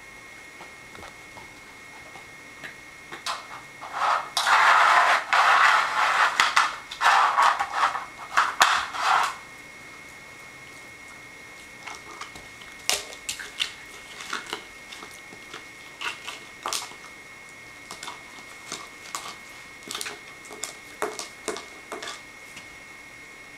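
Puppy mouthing and biting a plastic dog bowl. A few seconds of loud crunching and rattling come first, then scattered sharp clicks and knocks as the bowl is carried and chewed.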